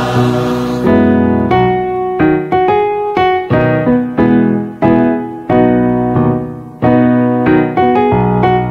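A choir's last held chord dies away about a second in, then a piano plays an instrumental passage of chords, each struck and left to fade, a new one roughly every half second.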